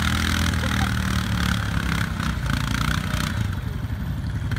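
Quad (ATV) engines running under load as a quad churns through deep mud, a steady low rumble with a few knocks in the second half.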